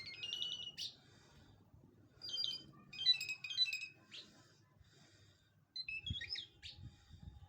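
A lark singing in four short bursts of quick, clear chirps and trills, with pauses of about a second between them.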